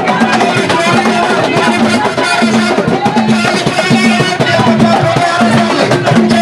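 Music with drums and percussion, a low note repeating about every three-quarters of a second in a steady rhythm.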